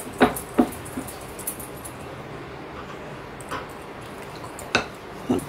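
Dough being rolled out with a wooden rolling pin on a round board, with a few sharp clacks and knocks of the pin against the board, about five spread out.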